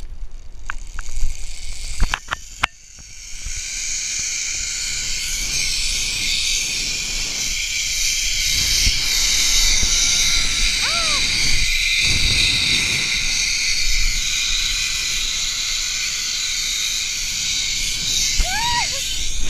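Zip-line trolley pulleys running along the steel cable: a steady high whir with rushing air that sets in about three seconds in, after a few knocks at the launch.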